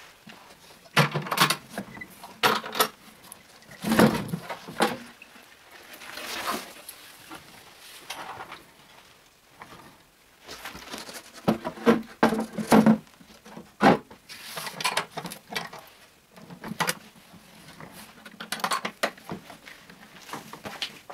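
Handling a painted, cheese-shaped storage box: its panels and lid are swung open and shut, giving irregular knocks, clicks and short scrapes in clusters.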